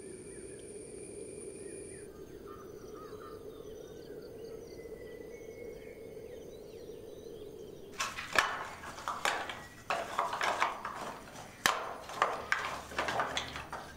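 Faint bird chirps over a low steady hum. From about eight seconds in, irregular sharp knocks and clatter as dry coconut-shell halves are tossed and piled into a cremation pit as pyre fuel.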